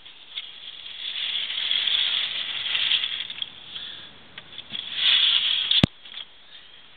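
Siphon-feed airbrush spraying paint in hissing bursts: a longer spray of about two and a half seconds starting about a second in, then a shorter, louder one about five seconds in that cuts off with a click.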